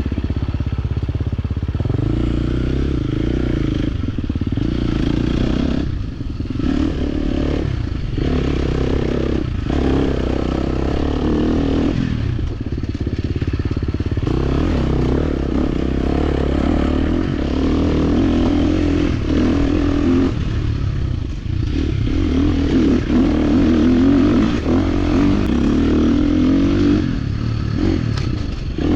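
Dirt bike engine running under load on a trail, its pitch rising and falling as the throttle opens and closes, dropping off briefly several times, with clattering from the bike over rough ground.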